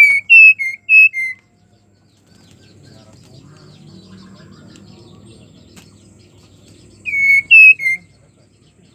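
Female white-rumped shama (murai batu) giving loud, clear whistled notes, each sliding down in pitch: a phrase of about five notes at the start and a three-note phrase about seven seconds in. This is the breeding-condition call of a female calling to a male.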